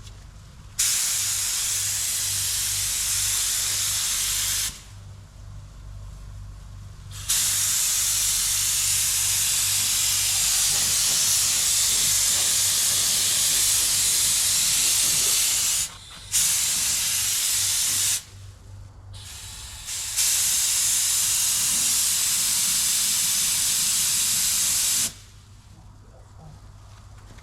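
Paint spray gun hissing as colour is sprayed onto a repaired car panel, in four passes: a short one near the start, a long one, a brief one, then another long one ending a couple of seconds before the end. A steady low hum runs underneath.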